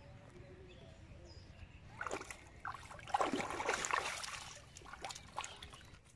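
Water splashing and sloshing as a hand grabs a hooked fish thrashing at a bottle trap in shallow river water. It starts about two seconds in with a few splashes, is loudest and most continuous in the middle, and dies away near the end.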